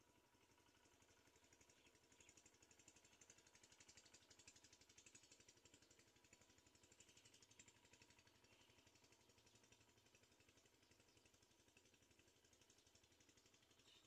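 Near silence: faint outdoor background hiss with a fine, rapid pulsing in the high range.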